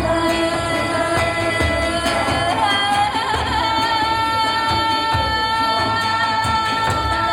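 Woman singing long held notes over live band accompaniment; about two and a half seconds in her voice slides up to a higher note and holds it with a slight waver.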